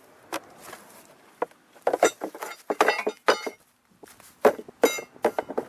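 Metal objects clanking and clinking together in a string of irregular sharp knocks, some of them ringing briefly.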